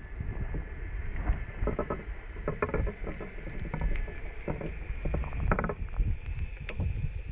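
Underwater sound picked up through an action camera's waterproof housing: a low, muffled rumble of moving water with irregular knocks and clicks.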